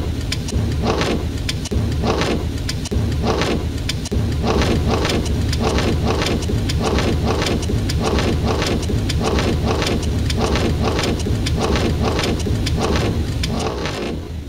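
Windshield wiper strokes across a wet windscreen, cut into a looped rhythm over a car's steady low engine and road hum with a rain-like hiss. The strokes come about once a second at first, quicken after about four seconds, and fade near the end.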